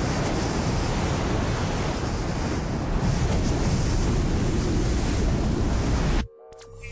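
Steady rush of ocean surf, with breaking waves and a wind-like hiss, that cuts off suddenly near the end. A few faint steady electronic tones begin just after.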